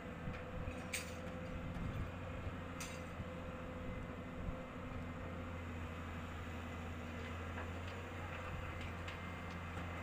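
Heavy construction machine's engine running steadily at an even pitch, with two sharp metallic clinks in the first three seconds and a few fainter ticks later.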